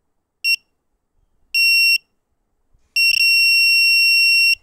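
An Arduino-driven buzzer beeping with a steady high-pitched tone: a short beep, a longer one, then one of about a second and a half near the end. The beeping shows that the buzzer circuit and its program are working.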